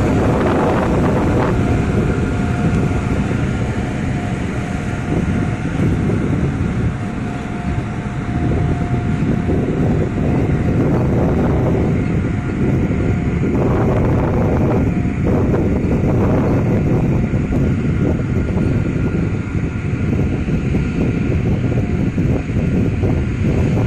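Container freight train rolling past close by: a loud, steady rumble and clatter of wagon wheels on the rails, with air from the passing train buffeting the microphone. A faint whine from the electric locomotive fades out in the first seconds as it goes by.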